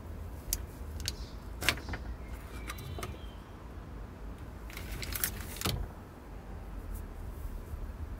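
Plastic clicks and rattles of a multi-pin wiring connector being unlatched and pulled off a VW Golf Mk5 radiator cooling fan's plug, then handled aside. The sharpest click comes about one and a half seconds in, with a cluster of rattling clicks around five seconds, over a steady low hum.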